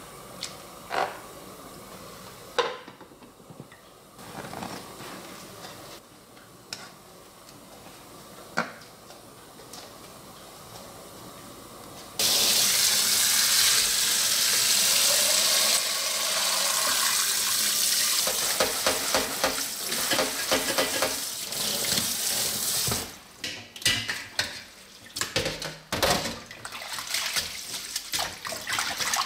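Thin wheat noodles stirred in a pot of water with chopsticks, with a few sharp knocks. About twelve seconds in, a loud rush of water starts suddenly as the steaming pot of cooked noodles is emptied into a steel mesh strainer in a sink. Near the end it turns to uneven splashing as the noodles are rubbed and rinsed by hand in a bowl of water.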